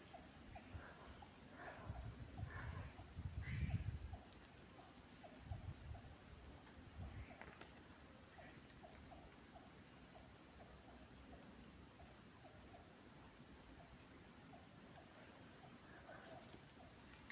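Steady high-pitched chorus of crickets and other insects, with a fainter chirp repeating about twice a second. A few low bumps sound in the first seven seconds.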